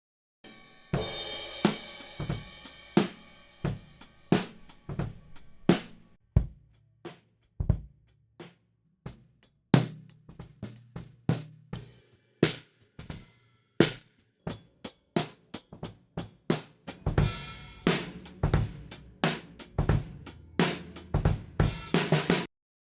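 Drum kit playing a groove of kick drum, snare and hi-hat. A crash cymbal rings out about a second in and again around seventeen seconds in. The playing stops shortly before the end.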